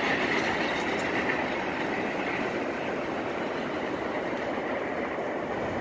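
Freight train cars rolling past, a steady rumble and rail noise that slowly grows fainter.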